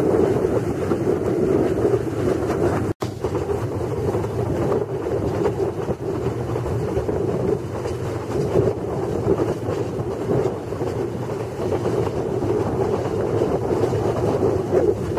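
Steady running noise of a small narrow-gauge tourist train, heard from an open-sided carriage: wheels rumbling on the rails, with wind on the microphone. The sound cuts out for an instant about three seconds in.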